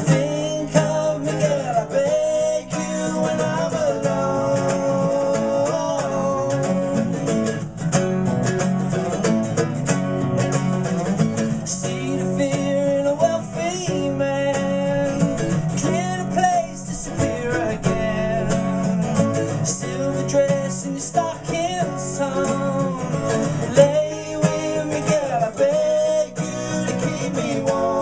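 A live acoustic song: a steel-string acoustic guitar strummed together with a nylon-string classical guitar, under male singing.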